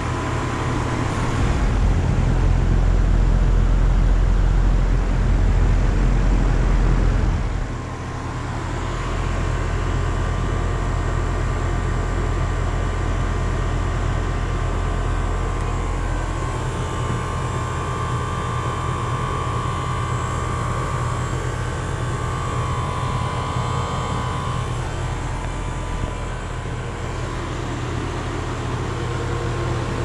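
Lennox Merit Series 2.5-ton central air conditioner condensing unit running steadily: the hum of the compressor under the rush of the condenser fan. A heavier low rumble lasts from about two to seven seconds in, and a faint steady whine is heard in the middle.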